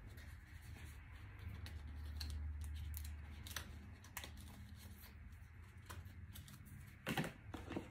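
Faint rustling and small clicks of a paper sticker sheet and card booklet being handled, over a low steady hum, with a louder rustle about seven seconds in.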